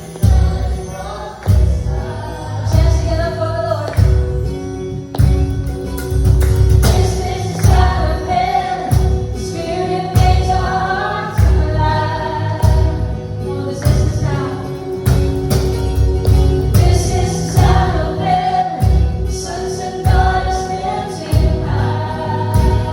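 Contemporary Christian worship song: voices singing together over a band with a steady drum beat and bass.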